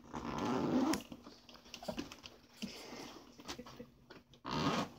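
A cat growling from inside a pet backpack, upset at being shut in: a harsh growl lasting about a second at the start and a shorter one near the end, with small handling clicks and rustles between.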